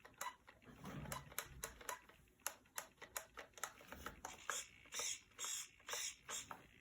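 Faint, irregular ticking from a remote-control truck's receiver: a string of sharp clicks, with a few short buzzy bursts in the second half. The owner takes the ticking for a fault in the receiver.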